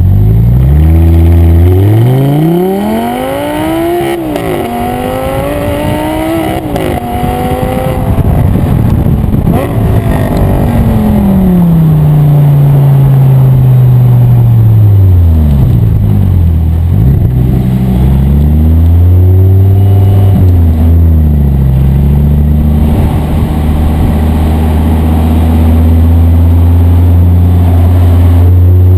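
Audi R8 V10 Spyder's V10 engine through an Eisenmann stainless valve-controlled exhaust, accelerating hard with two quick upshifts, then revs falling away as it slows. It picks up again and holds a steady engine note near the end.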